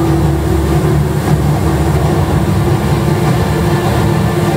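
Loud, steady low roar of the Rain Vortex, a tall indoor waterfall plunging into its basin.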